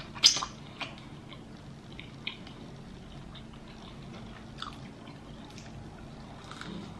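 Close-miked eating sounds: chewing with scattered wet mouth clicks and smacks. The sharpest smack comes about a quarter second in.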